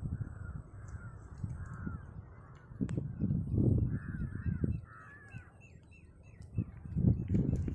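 Crows cawing repeatedly, with gusts of wind rumbling on the microphone that are loudest a few seconds in and again near the end.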